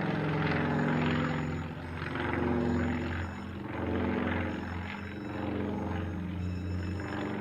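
Aircraft engine running with a steady low drone and a rushing noise on top that swells and fades every second or two.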